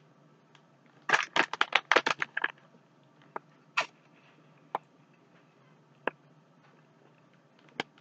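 Eating crunchy cheese curls straight from a crinkly snack bag. A quick run of crackling starts about a second in and lasts over a second, followed by a few scattered single crackles.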